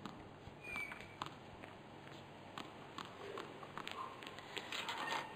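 A tennis ball being bounced on a hard court before a second serve: scattered light taps, more of them close together near the end, with a couple of short squeaks.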